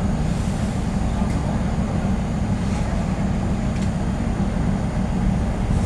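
Steady low rumble of a passenger train running, with a few faint clicks.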